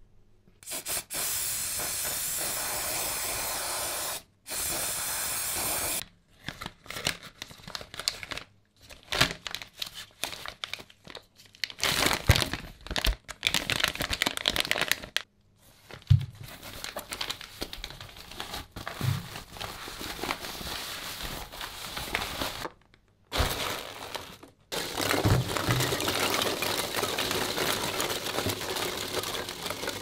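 A loud, steady hiss that starts and stops abruptly several times, with a choppy stretch of crackling and clattering in the middle.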